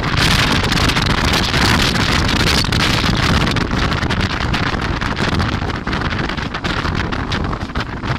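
Train running at speed, heard from aboard: a steady loud rumble and rush of wheels on track, with wind buffeting the microphone.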